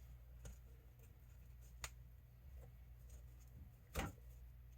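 A few faint clicks and taps from handling a metal D-ring and a strap as the strap is fed through the ring; the loudest comes about four seconds in. A low steady hum sits underneath.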